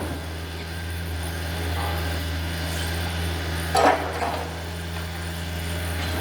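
Takeuchi TB153 compact excavator's diesel engine running steadily, with one brief loud clatter of the machine working just before four seconds in.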